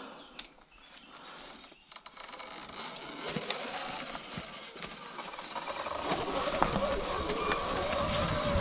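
Sur-Ron electric dirt bike setting off and riding over a rocky trail covered in dry leaves: tyres crackling over leaves and loose stones, growing louder from about three seconds in, with a faint whine from the electric motor in the second half.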